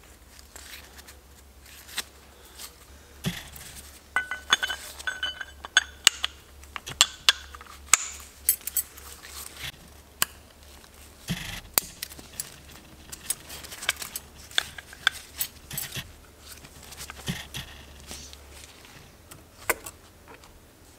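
Small metal engine parts clicking and clinking as a piston, its wrist pin and a forged connecting rod are handled and fitted together, with a few brief ringing clinks about four to six seconds in.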